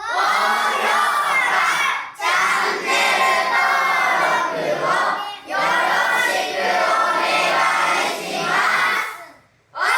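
Many voices singing or chanting together in unison, in long phrases of two to three seconds broken by short pauses.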